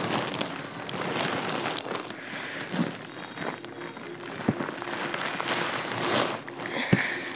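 Plastic wrapping crinkling and rustling as a rolled-up rug is handled, with a few short knocks.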